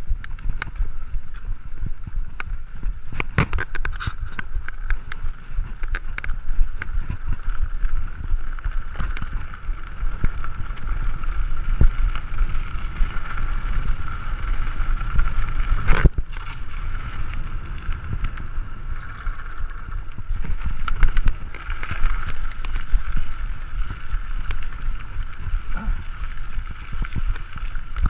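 Specialized Stumpjumper mountain bike ridden fast over rough grass, gravel and dirt: a continuous rumble of tyres on the ground, with the frame and parts rattling and knocking irregularly. One sharp knock stands out about halfway through.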